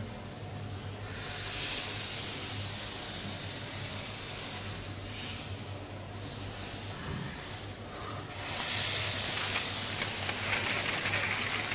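Hissing, rustling paper sounds that swell and fade in three long waves, the last and loudest starting a little past the middle, with a finer crackle near the end, over a steady low hum.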